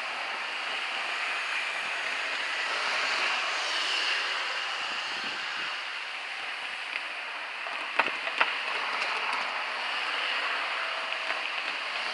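A Kintetsu 2050 series local electric train running along the track, a steady rushing rail noise. About eight seconds in come two sharp wheel clicks in quick succession, then a few fainter ticks.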